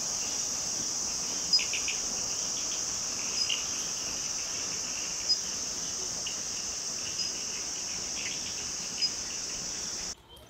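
Steady high-pitched chorus of insects, with a few short chirps scattered through it; it cuts off suddenly near the end.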